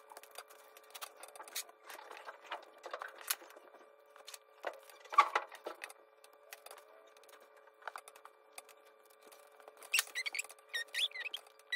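Small tool-and-parts handling on a TRX4M mini RC crawler chassis: a small screwdriver and plastic and metal parts clicking, ticking and scraping in scattered light strokes, with a louder clatter about five seconds in and a few brief high squeaks near the end.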